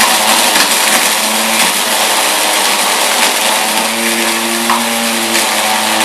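Small electric motor of a homemade coffee grinder running steadily with a loud whirring hiss and a low hum.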